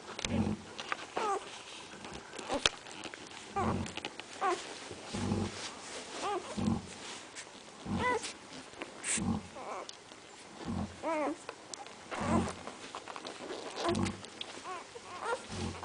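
Central Asian Shepherd puppies whining and yelping in short arching cries, over short low sounds that repeat about every second and a half.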